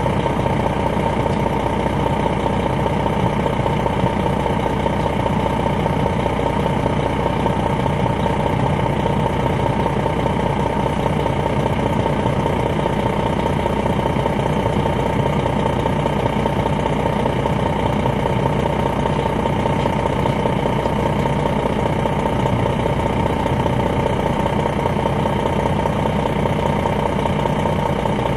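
Detroit Diesel Series 60 six-cylinder diesel of a 2001 MCI D4000 coach running steadily at an unchanging pitch, heard from inside the bus, with a steady whine over the engine note.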